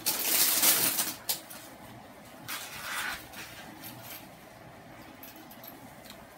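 Plastic packaging crinkling and rustling as a small manicure kit is unwrapped and handled, loudest in the first second with a sharp click, then a shorter rustle about halfway through before it fades to faint handling noise.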